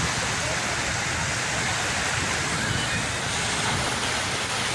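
Sea surf washing on the shore, heard as a steady, even rush of water noise.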